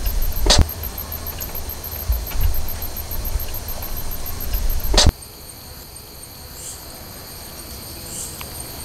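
Night insects: crickets calling in a rapid, even high-pitched pulse, with another insect call repeating about every second and a half. A low rumble sits under them until about five seconds in, where it stops abruptly with a sharp click; another sharp click comes about half a second in.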